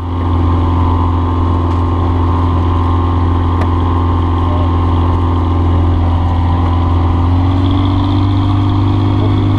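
Denney Kitfox light aircraft's engine and propeller running steadily, heard from inside the cockpit while taxiing; the pitch rises slightly about seven seconds in.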